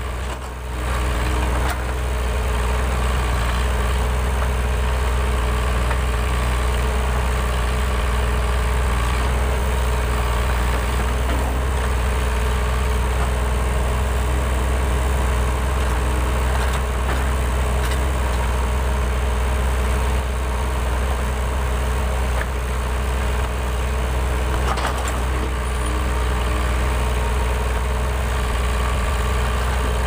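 Diesel engines of a backhoe loader and a tracked excavator running steadily while they dig, a loud, even, deep drone with a few steady higher tones over it.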